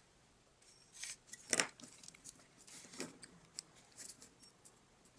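Sheet of origami paper crinkling and rustling as it is folded and creased by hand: faint scattered crackles, with one sharper crackle about one and a half seconds in.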